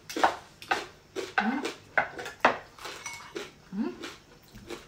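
Metal forks and spoons clinking and scraping against plates, a sharp clink about every half second, with chewing and mouth sounds of eating.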